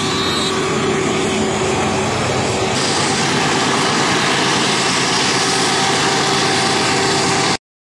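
Diesel freight locomotives running past, a loud steady engine drone and rumble that cuts off suddenly near the end.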